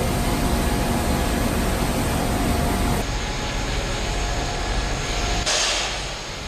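A high-pressure jet wash running: a steady pump hum under the hiss of the water jet spraying the back of a bus. The sound changes abruptly about three seconds in, and a brighter burst of spray hiss comes about a second before the end.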